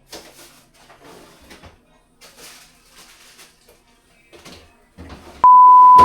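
Soft, irregular rustling and handling noises, then near the end a loud, steady beep at one pitch that lasts about a second.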